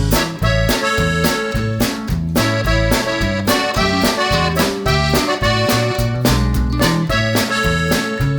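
Background music led by an accordion-like instrument over a steady beat.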